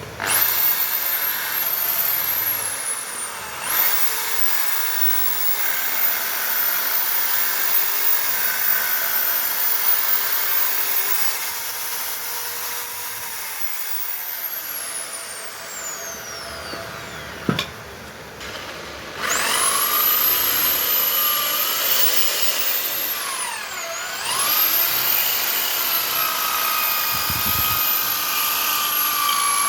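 Small high-speed electric power tool running with a high whine, enlarging a hole that is too small. It stops briefly a few seconds in, winds down with a falling pitch around the middle, with a sharp click, then starts up again, its pitch dipping briefly under load.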